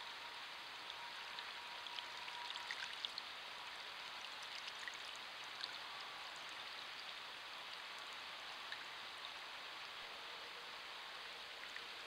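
Faint small splashes and drips of water in a bird bath as a western screech owl bathes, clustered in the first half, over a steady low hiss.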